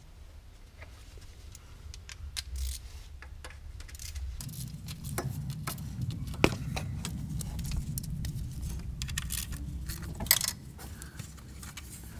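Metallic clicking and rattling of a hand tool working loose the bolts of a diesel engine's lower timing-belt cover. A denser low rubbing rumble runs through the middle, with a couple of sharper clicks.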